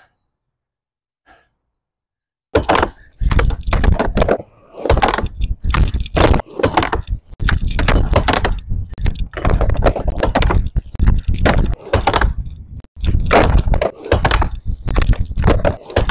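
Near silence, then from about two and a half seconds in a fast run of cut-together skateboard attempts on a wooden backyard ramp: urethane wheels rumbling over the plywood, with repeated sharp board clacks and heavy thuds as the skateboard and rider hit the ramp.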